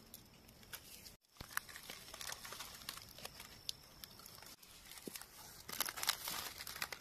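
Faint scattered crackling and rustling, thickening briefly about six seconds in, from hands working through dry leaf litter and soil to dig out wild mushrooms.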